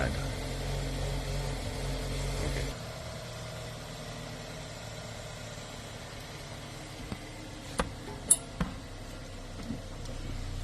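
Steady low background hum that drops away abruptly about two and a half seconds in, leaving quiet steady noise. Around the middle come a few sharp clicks and taps of brake parts and tools being handled.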